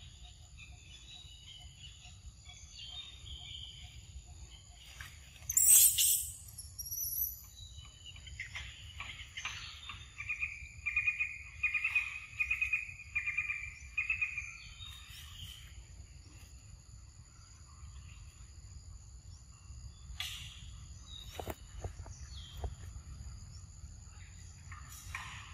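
Forest ambience: insects keep up a steady high-pitched drone at several pitches while birds call, one of them repeating a call about one and a half times a second for a few seconds midway. A single loud, sharp sound stands out about six seconds in.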